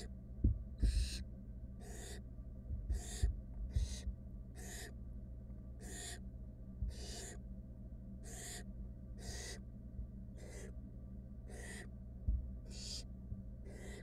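Barn owl nestlings hissing, about once a second: the rasping food-begging 'snore' of young barn owls. A steady low hum runs underneath, with a few low thumps.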